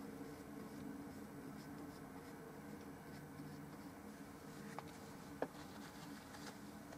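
Faint scratching of an oil-paint brush stroking across a small painted panel, over a low steady hum, with a sharp click about five seconds in.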